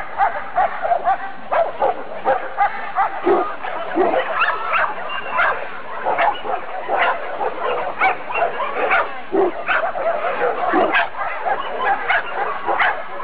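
Dogs barking over and over, several short overlapping barks a second.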